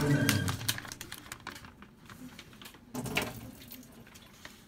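Light plastic clicks and taps as a plastic bag clip is handled and set down on a wooden cutting board, with a louder knock about three seconds in. Background music fades out at the start.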